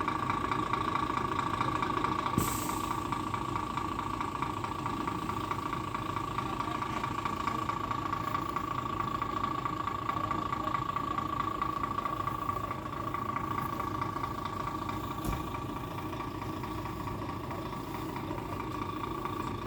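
Heavy truck's diesel engine idling steadily, with a constant high whine over the running.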